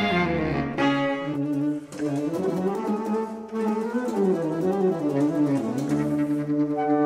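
Saxophone sextet playing: several saxophones holding chords over a low bass line that moves up and down, with a brief break about two seconds in.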